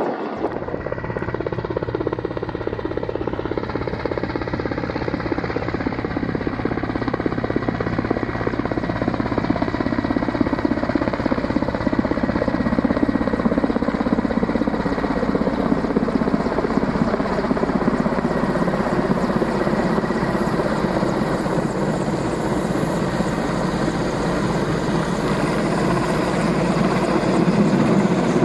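Mil Mi-8 helicopter's twin turboshaft engines and main rotor running in flight: a fast rotor beat under a thin steady turbine whine, growing gradually louder as it comes in low.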